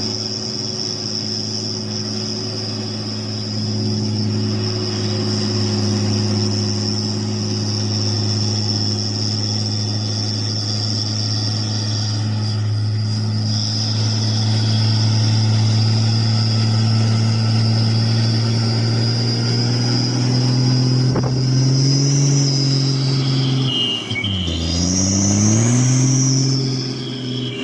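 Hino 500 truck's diesel engine running steadily with a low hum. Near the end it rises in pitch, drops suddenly and climbs again as it accelerates through a gear change. A steady high tone sits above it throughout.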